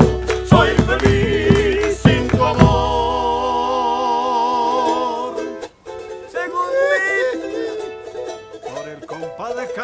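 Men singing in harmony to a strummed charango. After a few seconds of strumming, the voices hold a long wavering chord that ends about five and a half seconds in. After a brief hush, soft plucking and quieter voices follow.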